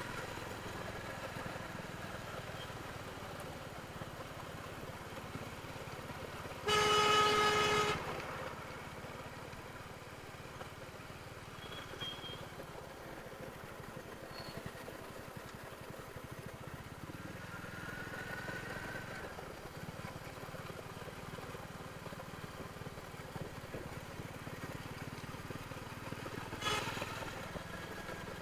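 Royal Enfield Hunter 350's single-cylinder engine and stock exhaust running steadily. About seven seconds in, a vehicle horn sounds once for about a second, the loudest sound here.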